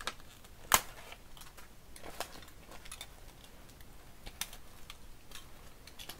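Hands fumbling with a zip-tied plastic tarp bag: light rustling and a scattering of small clicks, with one sharp click about a second in, the loudest.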